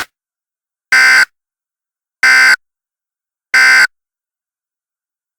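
Emergency Alert System end-of-message data code: three short, identical electronic bursts, each about a third of a second long and a little over a second apart. They signal that the alert message is over.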